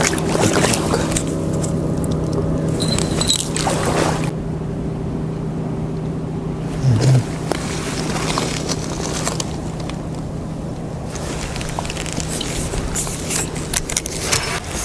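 An engine running steadily at an even pitch, with scattered clicks and a short low thump about seven seconds in.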